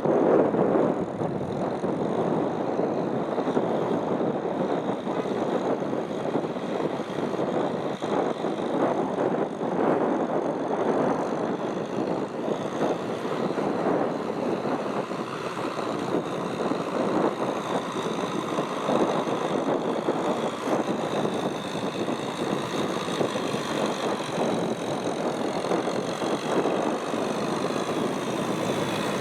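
Farm tractor's diesel engine running steadily while plowing a muddy field, with a faint high whine over it.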